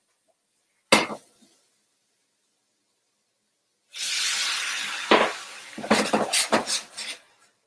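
A single sharp knock about a second in. About four seconds in, water poured into a hot, dry-browned sauté pan of eggplant hisses and sizzles loudly into steam, fading over about a second, as the pan is deglazed. Then a run of sharp knocks and scrapes of a spatula against the pan as the browned bits are loosened.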